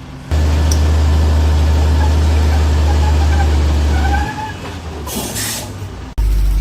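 Heavy truck on a steep climb: a loud, steady low engine drone that drops off about four seconds in, followed by a short hiss from the air brakes.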